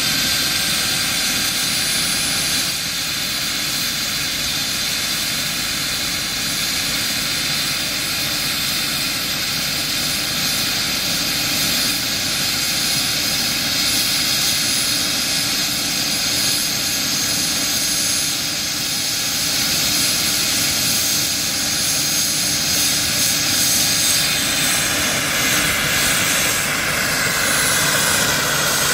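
Radio-controlled scale Alouette II helicopter running on the ground with its rotors turning, a steady whine with high tones. Near the end its sound changes and grows a little louder as it lifts off into a low hover.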